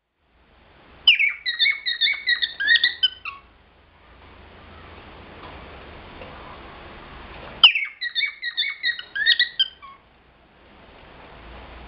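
Cockatiel calling: two bursts of quick, short chirping calls that dip in pitch, each lasting about two seconds, the second about six seconds after the first.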